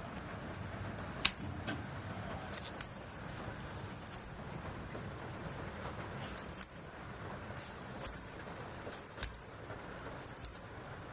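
Small metal jewellery jingling in short, bright shakes, about seven of them spread a second or so apart, over a faint steady hiss.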